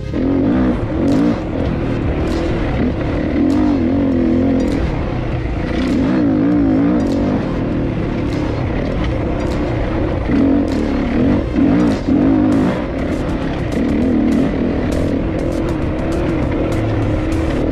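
Dirt bike engine running under throttle while being ridden, its pitch rising and falling as it revs up and down.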